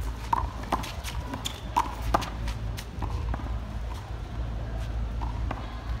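Handball rally on a concrete court: a string of sharp smacks as the small rubber ball is struck by hand and rebounds off the wall and ground, most of them in the first two seconds, over a steady low rumble.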